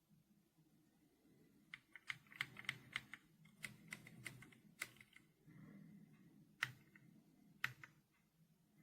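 Typing on a Royal Kludge R75 mechanical keyboard with silver switches: a quick run of about a dozen key presses, then two single, louder key presses near the end.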